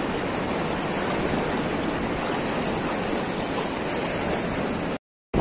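Steady rush of water pouring through the gates of a river weir into the current below, an even wash of noise that drops out for a moment near the end.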